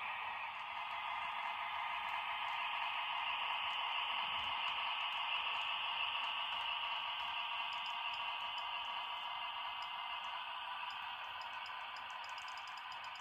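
HO scale model diesel switcher locomotive running slowly along the track with a steady whir. Light, quick clicking of its wheels over the rail joints becomes more regular near the end.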